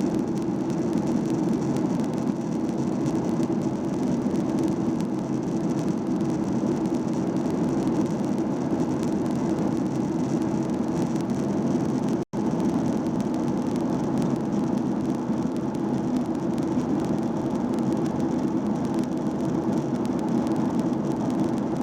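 Steady drone of jet engines and rushing air inside an airliner cabin in flight. The sound cuts out for an instant about twelve seconds in.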